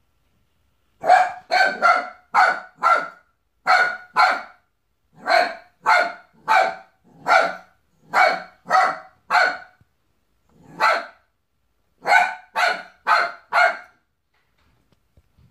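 Small dog barking in quick runs of two to five sharp barks, about nineteen in all, with short pauses between the runs. The dog is barking at a Santa Claus decoration.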